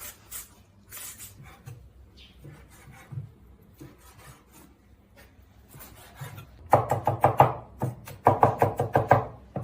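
Kitchen knife chopping quickly on a wooden cutting board in two fast runs of strokes near the end, after scattered lighter knocks and scrapes.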